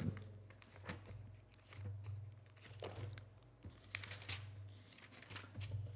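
Faint paper rustling and flicks of Bible pages being turned by hand, a few irregular swishes over a steady low hum.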